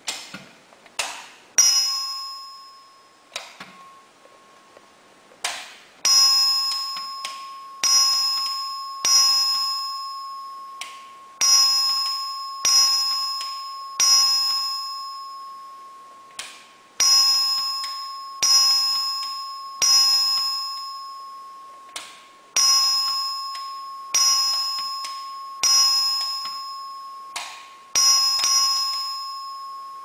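Simplex 2902-9240 electric bell-chime ringing in single strokes: separate dings about one every second or so, each ringing out and fading before the next, with a few short pauses. A couple of clicks and scattered strikes come first. The bell's electromagnet is on a 32-volt DC adapter, so it works as a single-stroke bell rather than vibrating.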